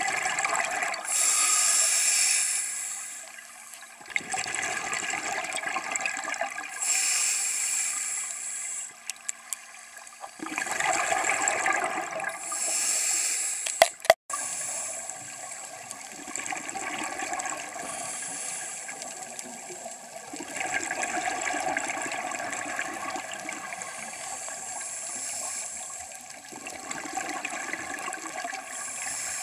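Scuba diver breathing through a regulator underwater: rushing bursts of exhaled bubbles every few seconds. A sharp click about halfway through, then a steadier bubbling wash.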